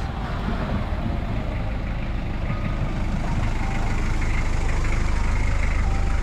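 Steady low rumble of a vehicle engine running nearby, growing a little louder in the second half.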